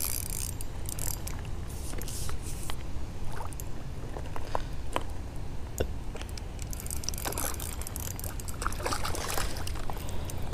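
Water splashing and trickling as a hooked rainbow trout is reeled in to the bank on a small spinning reel, over a steady low rumble with scattered light clicks.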